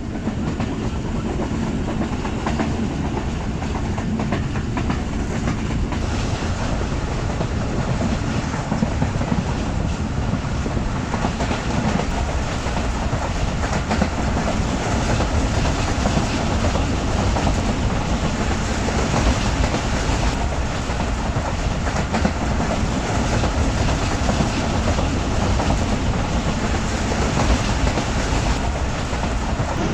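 Passenger train coach running along the track, heard from on board: a steady rumble and rattle, with the wheels clicking over rail joints throughout.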